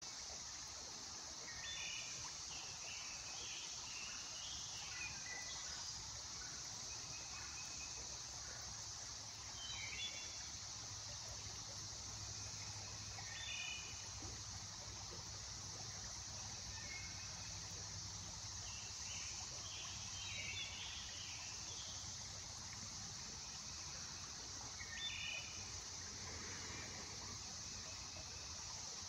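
Woodland ambience: a steady high-pitched insect chorus, with short bird calls every few seconds.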